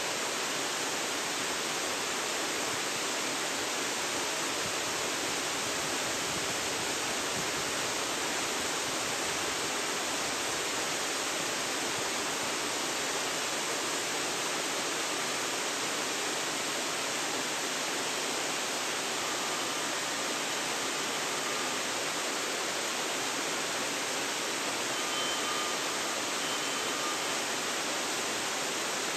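Waterfall: falling water making a steady, even rush with no change in level.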